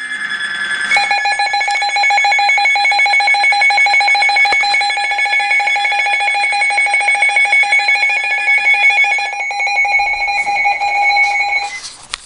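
Weather alert radio's electronic alarm sounding for an incoming weather warning. A steady high tone is joined about a second in by a loud, rapidly pulsing two-pitch alarm. The steady tone drops out later, and the alarm cuts off shortly before the end.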